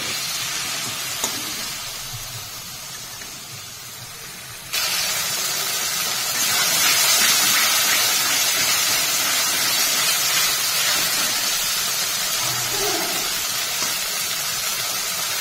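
Onion, spice-paste and tomato masala sizzling in hot oil in a kadai, a splash of water just added, as it is stirred and cooked down. The sizzle fades over the first few seconds, then jumps suddenly louder about five seconds in and stays steady.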